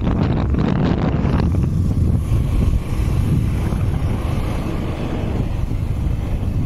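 Wind buffeting the microphone of a vehicle moving along a road, over a low rumble of engine and road noise. It is gusty for the first second or so, then settles into a steadier rush.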